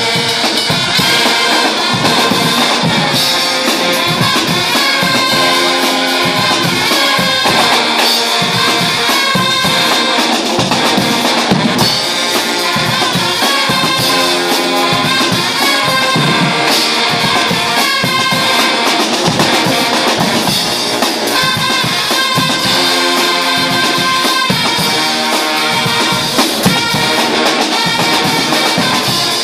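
Guggenmusik carnival band playing live: trumpets and low brass over large bass drums, a drum kit and cymbals, loud throughout with a steady beat.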